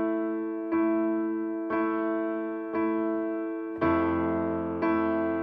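Background music: a piano playing slow sustained chords, one struck about every second and fading away, with a deeper low register joining about four seconds in.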